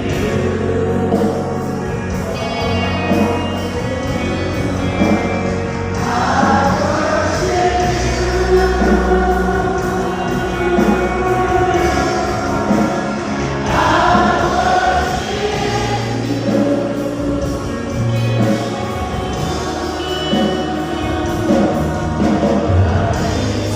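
Christian worship music with a choir singing over a steady bass accompaniment.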